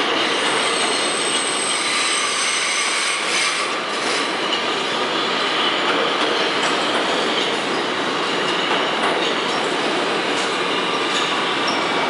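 New York City subway train moving along the rails: a steady steel-wheel rumble, with a thin high wheel squeal in the first few seconds and scattered clicks from the rail joints later on.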